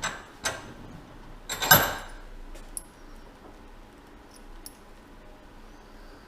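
Small metal tools being handled and set in a bench vise: a couple of sharp clicks, then a brief louder metallic clatter, then a few faint ticks.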